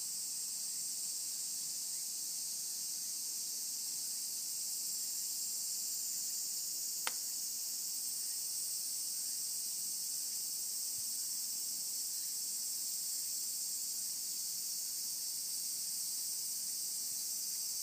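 Steady, dense high-pitched chorus of summer insects, unbroken throughout, with a single short click about seven seconds in.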